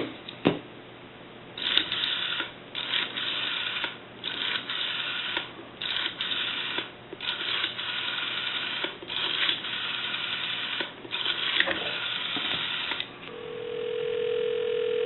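Rotary dial of a Wedgewood desk telephone dialing out a seven-digit number: seven separate whirring, ratcheting returns of the dial. Near the end a steady ringback tone comes up on the line as the called number starts to ring.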